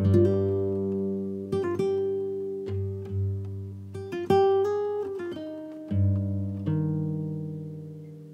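Background music: acoustic guitar, single notes and chords plucked and left to ring down.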